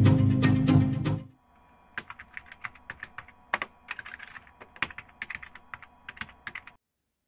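Intro music ends about a second in; then a knife chops broccoli on a wooden cutting board, a run of light, irregular taps that stops near the end.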